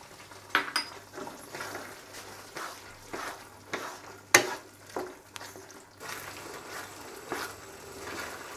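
Wooden spatula stirring chicken and chopped bell pepper through a thick sauce in a hot nonstick wok: a low sizzle under irregular scrapes and soft knocks against the pan, with one sharp knock about four and a half seconds in.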